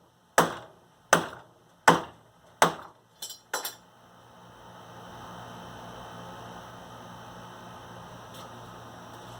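Hammer strikes on a hard drive's case, one about every three quarters of a second, ending with two quick taps about three and a half seconds in. A steady rubbing noise with a low hum follows.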